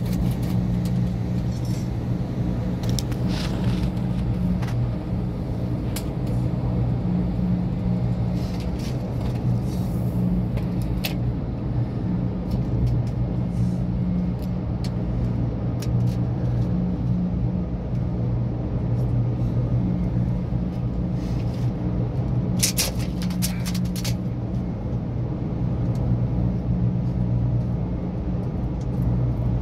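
An engine running steadily with a low drone. A few brief clicks and taps stand out over it.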